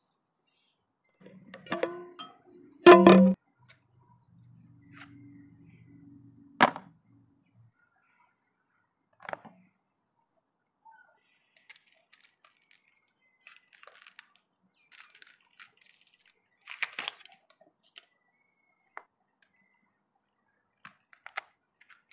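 Small metal clinks and a loud knock about three seconds in as the camping stove and gas canister are handled. From about twelve seconds a run of short crackles as the papery skin of an onion is peeled off with a knife.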